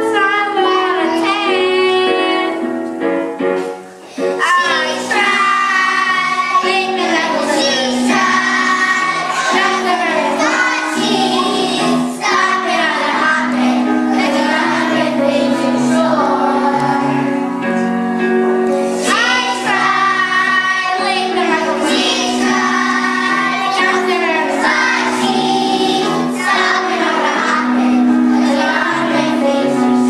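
A group of young children singing a song together to a musical accompaniment, with a brief break in the singing about four seconds in.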